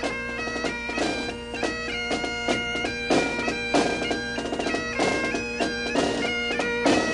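Bagpipe music: a steady drone under a quick, ornamented melody.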